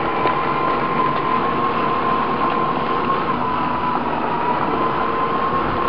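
Battery-electric garden tractor being driven, its electric drive motor giving a steady whine over the even noise of the machine rolling along; it is not very loud.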